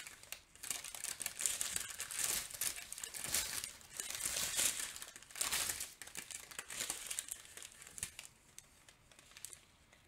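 Strips of sealed clear plastic packets of diamond-painting drills crinkling as they are handled and turned over, in irregular bursts that thin out over the last couple of seconds.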